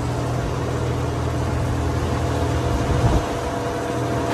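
A motor idling with a steady low hum and a few faint steady tones above it, under an even hiss of rain. A brief louder sound comes about three seconds in.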